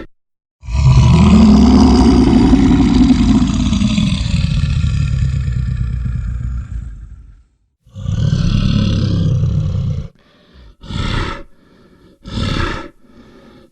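Brown bear roaring: one long roar of about seven seconds that rises and then falls in pitch, then a shorter roar, then two brief bursts near the end.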